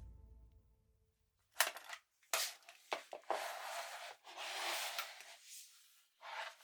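A run of sharp mechanical clicks and short scraping, sliding sounds, like the parts of a toy gun being worked by hand.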